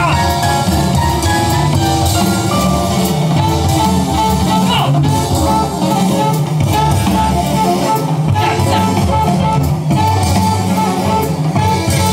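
Danceable jazz record played by a DJ over PA speakers, running on without a break.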